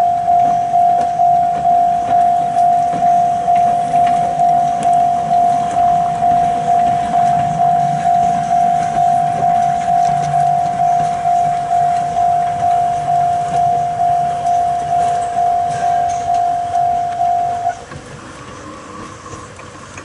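Railway level-crossing warning bell ringing in an even, steady rhythm of a little under two rings a second, cutting off suddenly near the end. Under it, the low rumble of the steam locomotive C58 363 rolling slowly past on the rails.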